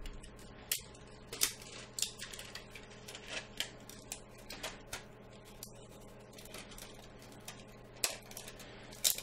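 Stiff plastic clamshell tray of coin-cell batteries being flexed and pried open by hand: irregular sharp plastic clicks and crackles.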